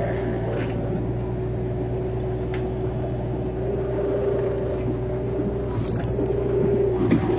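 Excavator running: a steady engine drone with a held whine over it, and a few brief clanks.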